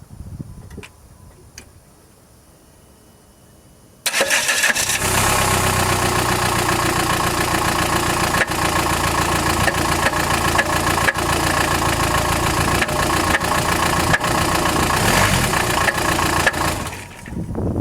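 Chrysler Grand Voyager's 2.8 CRD four-cylinder common-rail diesel starting up about four seconds in and then running with a rattle of irregular knocks. The rattle is from a badly cracked flexplate between the crankshaft and the torque converter.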